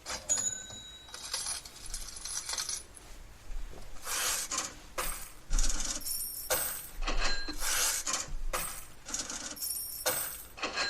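Irregular metallic clinks and jingles, each strike bright with a short high ringing tone, played back through a horn loudspeaker system.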